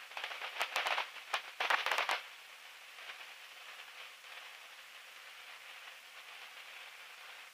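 Crackling static with sharp clicks for the first two seconds or so, then a steady hiss. The sound comes over a thin, filtered aircraft intercom line that cuts out the engine's low rumble.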